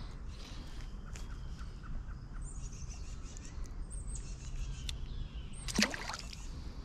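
A songbird sings short phrases of quick descending high notes several times over a steady low outdoor rumble. Near the end a single sharp click, the loudest sound, stands out.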